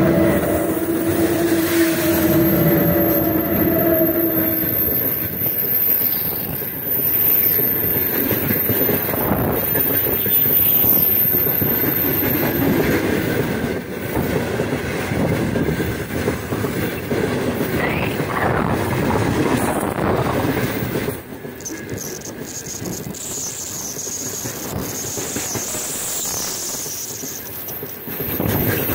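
Heavy freight train of loaded open gondola wagons rolling past at speed, a continuous rumble and clatter of wheels over the rails. A steady tone from the passing locomotives fades out in the first few seconds, and the sound is a little quieter for the last several seconds, with a thin high squeal.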